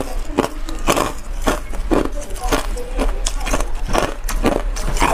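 Ice being crunched between the teeth into a close clip-on microphone: sharp crunches in a steady rhythm of about two a second.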